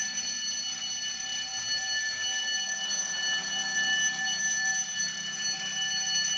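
Shop alarm sounder going off with a continuous, piercing high-pitched electronic tone, unbroken and steady in level.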